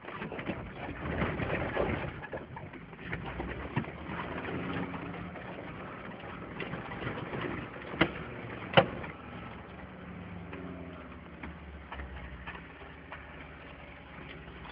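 Mercedes-Benz G-Class 'Wolf' off-roader heard from inside the cab on rough ground: the engine drones under a steady rattling and knocking of the body and fittings, busiest in the first couple of seconds, with two sharp loud bangs a little under a second apart about eight seconds in.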